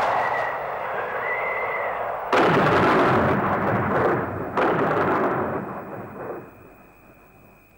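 Thunder-like sound effect: a loud rushing rumble that breaks into a sudden crash about two seconds in and another about four and a half seconds in, then fades away near the end.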